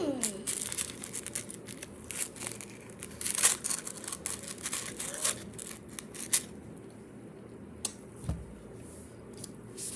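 Plastic snack packaging crinkling and tearing as it is handled and opened: a quick run of crackles over the first six seconds or so, then a couple of clicks and a dull thump about eight seconds in.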